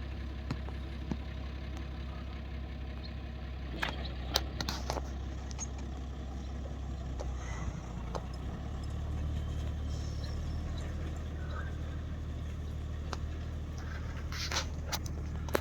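Tractor engine running steadily with a low hum, with a few sharp clicks and rattles about four seconds in and again near the end.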